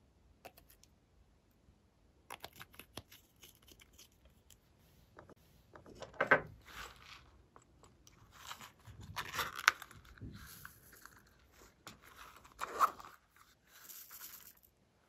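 Hands handling small plastic cosmetic containers over slime: light clicks and ticks of caps and cases, then a few louder crackling crunches about six, nine to ten and thirteen seconds in.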